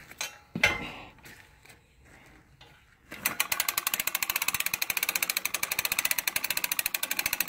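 Hand-crank winch being cranked, its ratchet pawl clicking rapidly and evenly, starting about three seconds in after a few light metal knocks.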